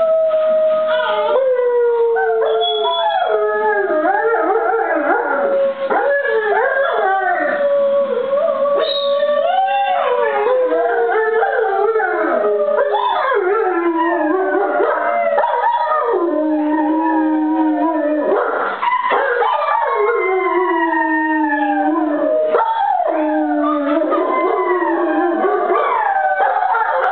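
Six-month-old German Shepherd puppy howling, loud, joined by children howling along: several long, wavering howls overlap and slide up and down in pitch without a break.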